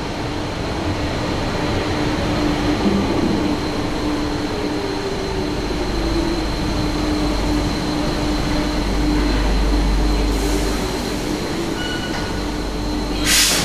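RATP MF77 metro train running into the station and braking to a stop, with a steady rumble and a whine that falls in pitch as it slows. A short burst of hissing air comes near the end.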